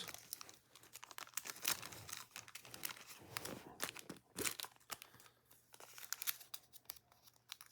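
Faint crinkling of plastic packaging and small scattered clicks of handling, as a replacement pin is taken out.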